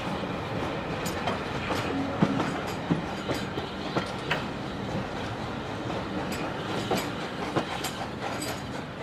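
Steam-hauled passenger coaches rolling past close by: a steady rumble of wheels on the rails with irregular sharp clicks, several a second, as the wheels run over the track joints.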